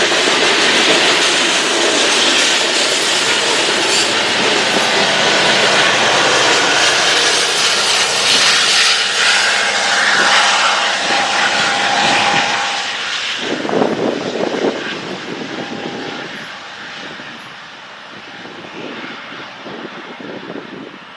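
Loaded coal train's cars rolling past on the rails with a steady loud rumble and rattle. The noise fades away from about two-thirds of the way through as the end of the train passes and moves off.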